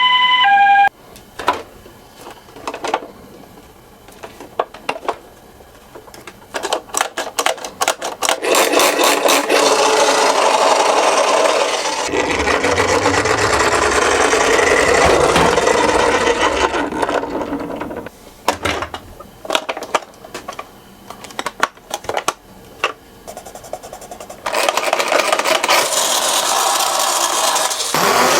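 Toy minicars running on a plastic slope track: scattered clicks and rattles, then two long stretches of continuous rolling and rasping, the first about eight seconds long and the second starting near the end.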